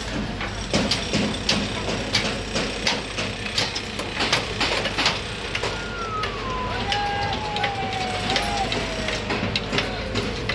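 Steady low machine hum with frequent sharp clicks and knocks. About six seconds in, a tone glides slowly down in pitch over several seconds.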